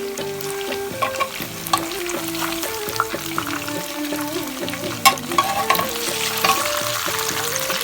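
Food sizzling as it fries in hot oil in a pan, stirred with a utensil that clacks against the pan now and then, sharpest about five seconds in.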